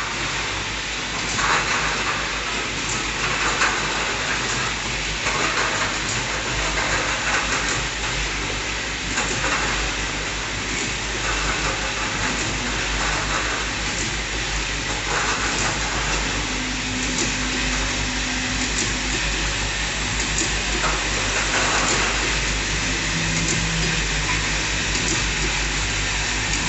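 Bottle unscrambler and conveyor of a filling line running: a steady mechanical hum with frequent light clicks and clatter of empty plastic bottles.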